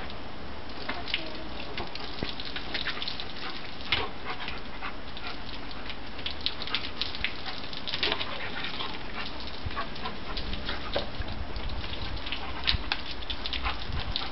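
An Alaskan Malamute puppy snapping and biting at a garden hose's spray, with a steady hiss and patter of water on wet concrete and many quick splashy jaw snaps scattered through it.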